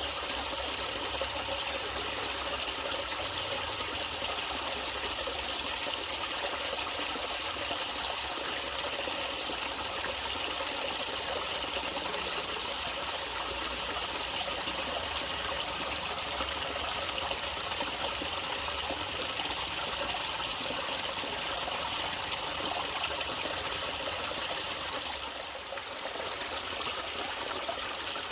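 Water trickling and flowing steadily in a small natural stream, with a short dip in loudness near the end.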